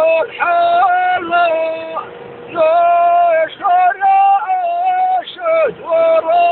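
A high singing voice in a music track, holding long notes that slide down at their ends, with a brief break about two seconds in.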